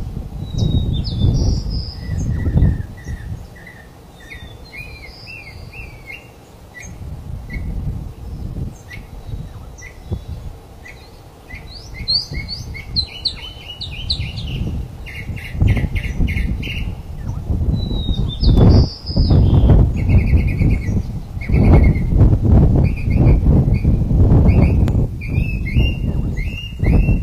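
Birds chirping and calling, with repeated short notes and quick rattling trills, over a low rumble that grows louder in the second half.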